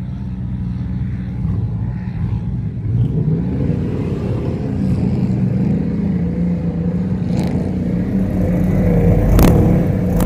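Engine of a black two-door square-body GMC SUV pulling away in soft sand: the revs climb about three seconds in, then hold high as it drives on toward the dune. A single sharp crack near the end.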